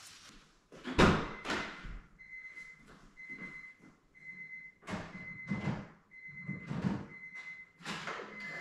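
A car door thunking, then the Honda Civic's warning chime beeping about once a second, with scattered knocks and rustling of movement around the car.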